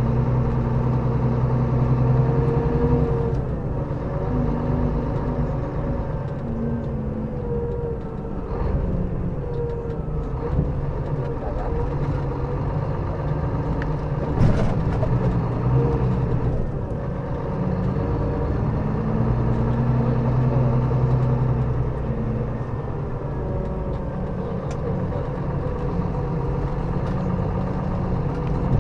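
Scania K400B coach's straight-six diesel engine running under way, its note rising and falling at times with the load and revs. There is a short knock about halfway through.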